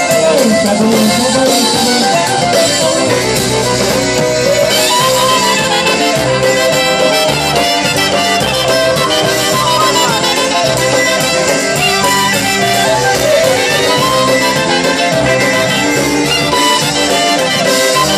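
Live polka band playing, led by a bowed fiddle, with a trumpet joining in.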